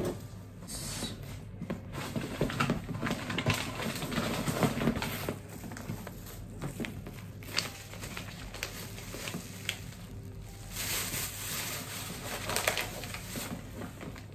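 Plastic bags rustling and crinkling as they are handled and pulled out of a handbag, with small irregular clicks and knocks of items being moved.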